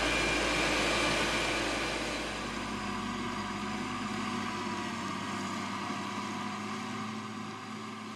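Steady machine hum with a hiss, like propellers or an engine running, slowly fading out.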